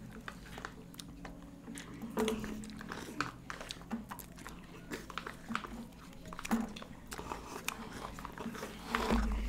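People eating ice cream: irregular sharp clicks and scrapes of spoons against small plastic ice cream cups and tubs, mixed with lip smacks and slurping mouth sounds.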